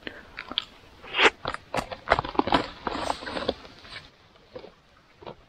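Irregular crackling and rustling of twigs and vegetation under the feet of a person walking through forest undergrowth with a slab of tree bark, several cracks a second, dying down about four seconds in.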